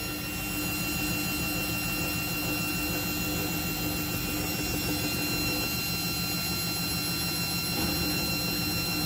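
Old Samsung front-loading washing machine on its final spin at 400 rpm with a load of sneakers in the drum, running with a steady whir and hum.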